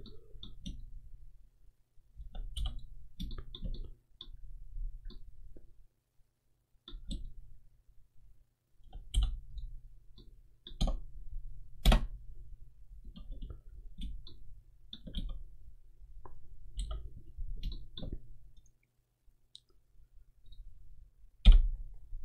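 Scattered clicks of a computer mouse and keyboard in irregular clusters with short pauses, over a faint low hum. A sharper click comes about twelve seconds in and another near the end.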